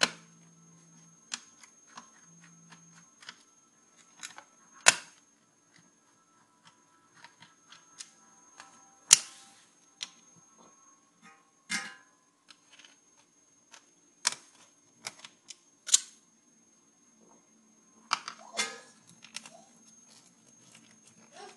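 Irregular clicks and knocks of plastic and metal parts as an opened CD-ROM drive mechanism is handled and its screws undone with a screwdriver. The sharpest clicks come about five and about nine seconds in.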